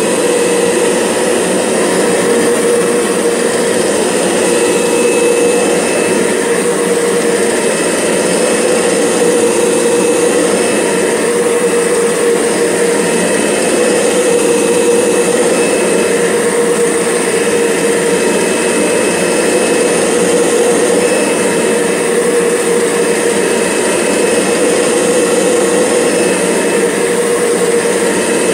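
Kirby G6 vacuum's motor running steadily with the Carpet Fluffer head attached and the belt disengaged in neutral, a constant whine with a steady hum under it: the strange noise the machine makes even with the brush drive disengaged.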